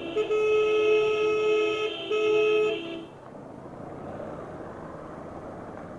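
Vehicle horn with two notes sounding together, blown twice: a long blast of about two seconds, then a shorter one. After it comes a steady hiss of heavy rain and wet-road traffic.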